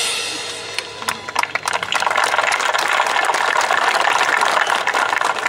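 A cymbal crash rings out and fades over the first second, then a crowd applauds, a dense patter of many hands clapping.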